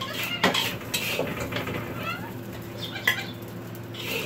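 Metal spatula scraping and clacking against a wok, scooping fried rice out to serve it: a series of uneven scrapes and knocks with a few short squeaks.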